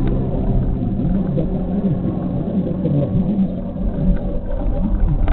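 Car driving at highway speed, heard from inside the cabin: a steady, low rumble of engine and road noise.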